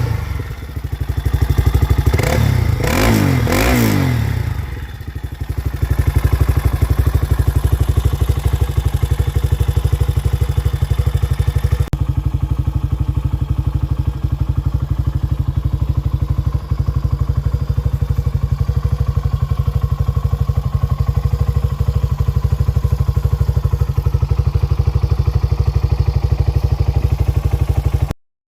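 Dinli DL901 450cc ATV engine running: revved briefly twice in the first few seconds, then settling into a steady idle with an even low pulsing.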